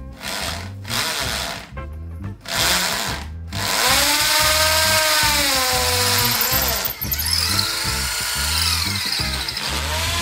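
Bosch electric drill boring a hole into a wall, running in short bursts at first, then continuously from about three and a half seconds in, its whine dipping and rising in pitch. Background music with a steady beat plays underneath.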